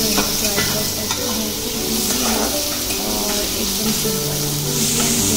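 Sliced onions sizzling as they fry in hot oil in a metal pan (kadhai), with a metal spatula scraping and stirring them against the pan in short strokes.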